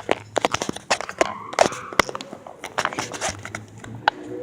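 Crackling and clicking handling noise on a phone microphone with a plug-in light attached, irregular sharp clicks all through.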